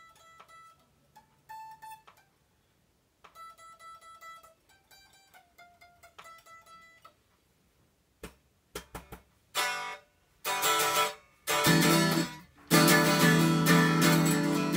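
Solid-body electric guitar: quiet single picked notes for the first half, a few short string taps, then loud strummed chords from about two-thirds of the way through, the last chord left ringing.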